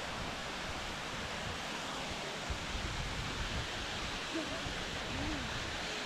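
Steady rushing hiss of wind outdoors, with gusts buffeting the microphone.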